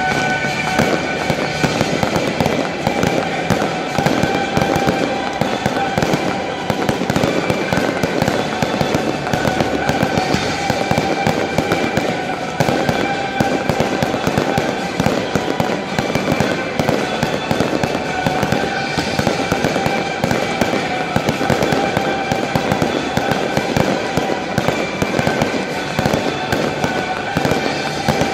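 A fireworks display firing a dense, unbroken run of bangs and crackle from ground fountains, comets and aerial shells. Recorded music plays under it as part of the pyromusical show.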